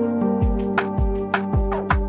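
Background music: sustained chords over a steady beat of deep kick-drum thumps and sharp percussion hits.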